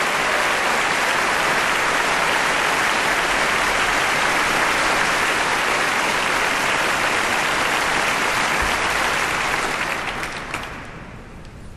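Large audience applauding steadily in a concert hall, then dying away over the last couple of seconds.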